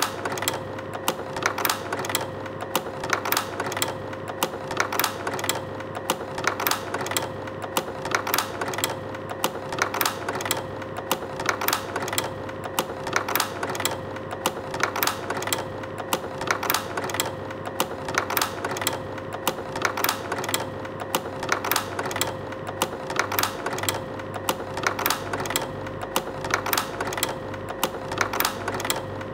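Slide projector cycling slides: its motor hums steadily while the slide-change mechanism clicks and clacks about three times a second, with slides pushed into and pulled out of the gate.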